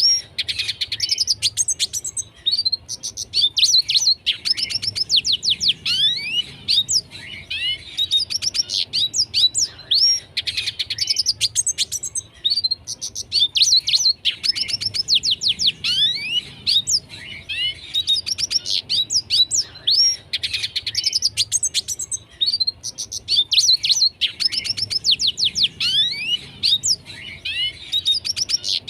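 Red siskin singing nonstop: a fast, unbroken run of high twitters, trills and quick downward-sweeping notes, with bursts of phrases coming round every few seconds.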